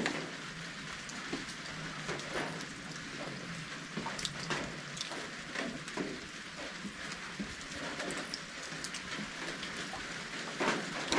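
Rain falling: a steady hiss of rain with many scattered drops and drips ticking on nearby surfaces, a few louder ones about halfway through and near the end.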